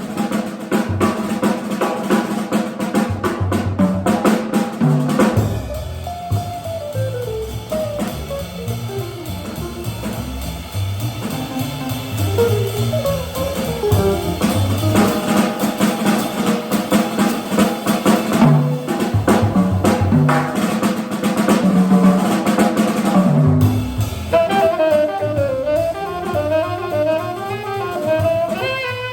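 Small jazz combo playing, with the drum kit to the fore: busy strokes, rolls and rimshots over bass and guitar. A tenor saxophone comes in with a melody about five seconds before the end.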